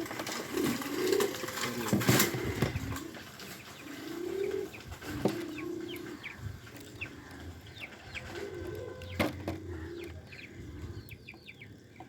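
Pigeons cooing in repeated low, rounded calls, with faint high chirps and a few sharp clicks.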